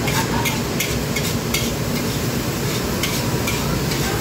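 Metal wok ladle scraping and clanking against a wok as fried rice is stir-fried, in quick, uneven strikes, with the rice sizzling. Underneath is a steady low rush from the wok range.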